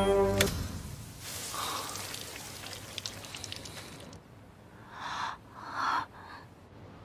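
A click, then shower water spraying steadily, stopping suddenly about four seconds in. Two short gasps follow.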